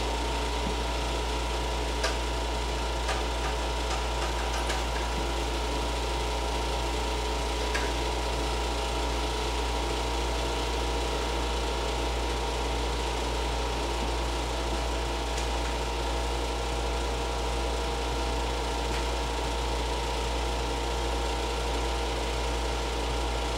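Window air conditioner running with a steady hum, and a few faint clicks over it.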